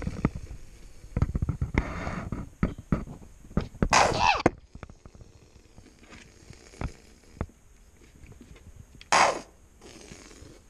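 A plastic Heinz ketchup squeeze bottle held upside down, shaken and squeezed: a run of quick knocks about a second in, then a short sputtering squirt of air and ketchup about four seconds in and another near the end.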